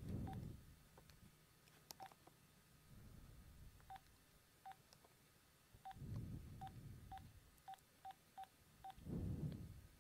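Cordless DECT phone handset keypad beeping as a phone number is dialed: about eleven short beeps, all the same pitch, coming faster toward the end. A few low rumbles of handling noise fall in between, louder than the beeps.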